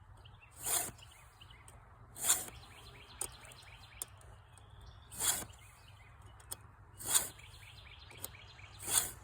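Hand file rasping across the cutters of a .325 semi-chisel saw chain on a Husqvarna Rancher 450, in five slow strokes a second and a half to two seconds apart, with small clicks between them.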